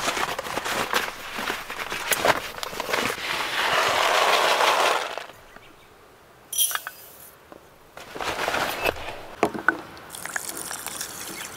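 A kraft-paper rice bag rustles and crinkles and uncooked rice rattles into an aluminium pot, with sharp metal clinks as the pot is handled. Near the end, water begins pouring from a water-tank tap onto the rice.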